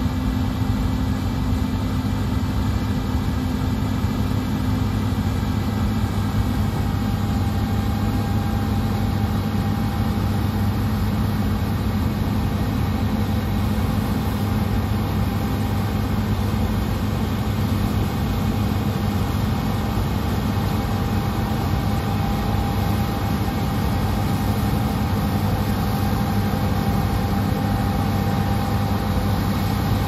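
Combine harvester running steadily as it cuts and threshes spring barley: an unbroken engine drone with a faint steady whine above it.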